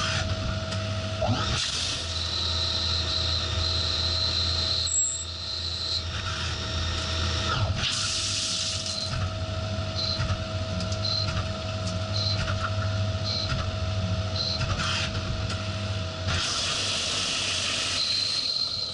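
Haas CNC lathe cutting aluminium under flood coolant: a steady spray hiss and machine hum, with a high cutting whine that holds for a few seconds and then sounds in short chirps about once a second. The hiss swells briefly twice, and the steady mid tone stops a couple of seconds before the end.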